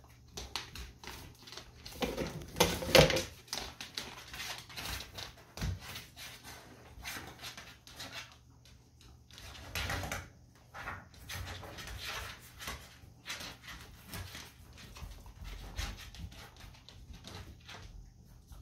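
A pot-bellied pig and a dog nuzzling face to face make a string of short, breathy sniffs and snuffles, with a louder whine-like cry about two to three seconds in and another loud burst around ten seconds.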